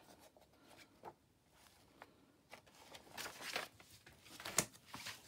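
Paper pages of an old model railway book being turned by hand, rustling softly. One page sweeps over with a longer swish about three seconds in, and a sharp tap comes about a second later as it is laid flat.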